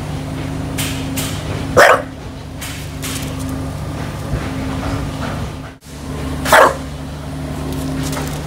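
Bulldog barking twice, single short barks about five seconds apart, over a steady low machine hum.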